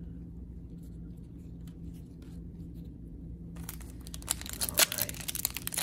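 The foil wrapper of an NBA Hoops trading-card pack crinkling and tearing open, a dense run of crackles that starts a little past halfway through. Before it there is only a faint low hum and a few light ticks.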